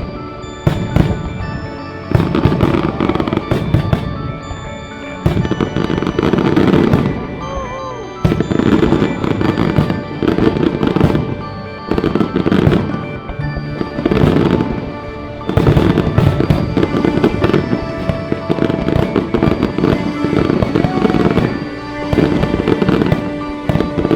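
Fireworks display: repeated bangs and crackling shell bursts in rapid succession, with music playing alongside.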